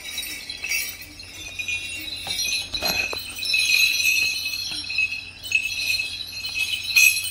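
A set of brass dance bells on a leg strap jingling continuously as they are handled, with louder shakes about three seconds in and again near the end.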